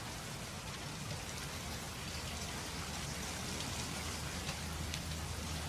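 Heavy rain falling steadily, a dense even hiss of the downpour, with a low steady hum underneath that grows a little stronger toward the end.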